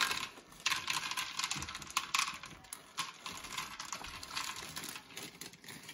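A plastic bag crinkling and rustling in irregular bursts as mini marshmallows are poured from it into a saucepan of melted butter, with light pattering as they drop in.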